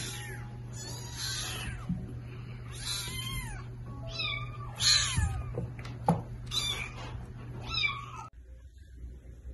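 Kittens meowing: about seven short, high-pitched meows roughly a second apart, stopping about 8 seconds in, with a couple of sharp clicks in the middle and background music underneath.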